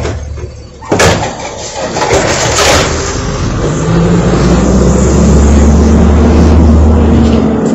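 Automated side-loader garbage truck emptying a recycling bin. A sharp knock about a second in comes as the bin is shaken out over the hopper, with a second clatter shortly after. From about four seconds in, the truck's engine revs up and runs loud and steady as the lift arm works.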